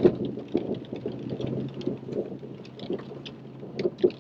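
A vehicle driving slowly over a rough, rutted dirt road, heard from inside the cab. A low, steady engine hum runs under irregular knocks and clunks as the vehicle jolts over the ruts.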